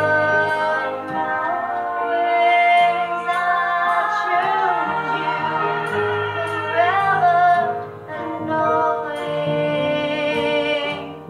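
A song: a singing voice with vibrato over steady instrumental accompaniment with held bass notes.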